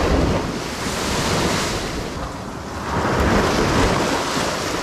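Ocean surf crashing and churning against the foot of a rock cliff, with wind buffeting the microphone. The wash swells twice: once at the start and again about three seconds in.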